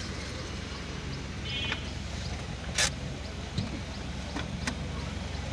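Steady low engine and road rumble of a car heard from inside its cabin while driving slowly. There is a brief high ringing tone about one and a half seconds in, a single sharp noise about three seconds in, and a few lighter clicks after it.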